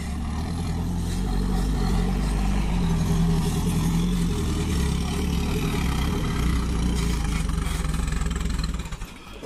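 Mahindra Thar's engine pulling up a sandy slope, a steady low drone that grows louder as the vehicle comes closer. The engine sound cuts off abruptly near the end.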